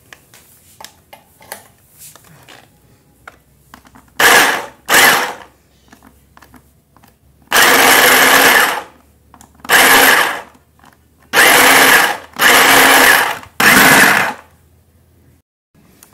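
Multilaser electric mini chopper pulsed in seven short bursts, its motor whining as the blade chops garlic cloves. Light clicks of the lid and container being handled come before the first burst.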